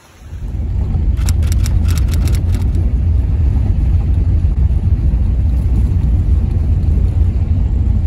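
Car driving on a dirt road, heard from inside the cabin: a steady low rumble of tyres and engine, with a few sharp clicks about a second in.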